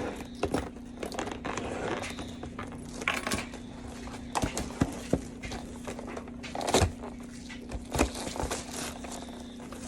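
Cardboard collectible-card boxes and their packaging being handled: scattered taps, clicks and short rustles, with a sharper knock about two-thirds of the way through. A steady low hum runs underneath.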